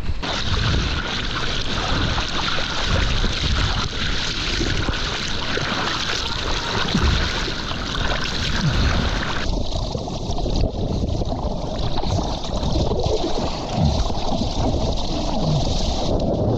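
Water sloshing and splashing around a surfboard as it is paddled, picked up close by an action camera. About nine and a half seconds in the sound turns abruptly duller, and it changes again shortly before the end.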